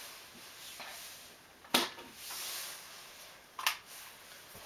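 Two short, sharp clicks about two seconds apart over faint room hiss.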